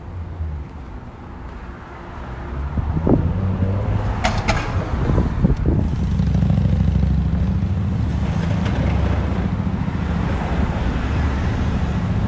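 Street traffic: a motor vehicle's engine rumble grows louder about two and a half seconds in and holds as traffic passes close by, with a brief sharp noise about four seconds in.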